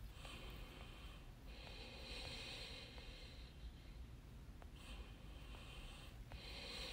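Faint breathing close to the microphone, in slow breaths of one to two seconds each, with a few faint clicks over a low steady hum.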